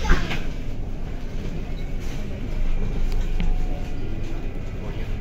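Bus running along a guided busway: a steady low engine and road rumble, with one sharp knock just after the start.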